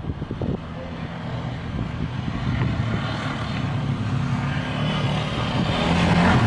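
Motor vehicle engine running nearby, a steady low hum with a rush of noise that grows steadily louder as it approaches.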